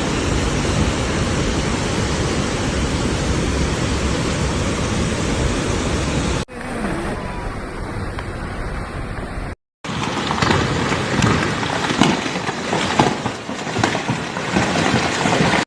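Rushing floodwater: a loud, steady torrent roar that changes abruptly twice, dropping to a quieter rush about six seconds in and, after a brief silence, turning to a rougher, uneven rush with scattered knocks.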